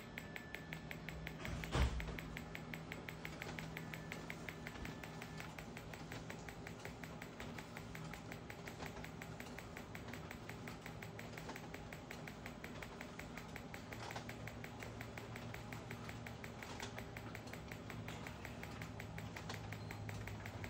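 Rapid, even clicking of a Magnawave PEMF therapy machine pulsing, with a single thump about two seconds in.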